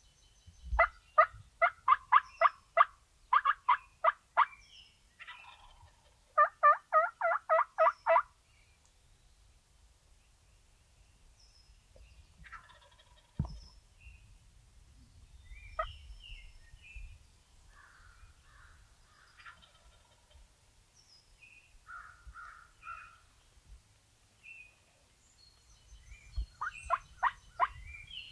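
Turkey yelping: two loud runs of evenly spaced yelps in the first eight seconds and another run near the end, with faint scattered turkey calls in between.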